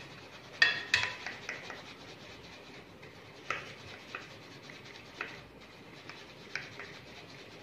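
Rice and gram flour being sifted: a plastic sieve shaken and rubbed over an aluminium basin, a soft steady rubbing hiss broken by irregular sharp taps, loudest about a second in.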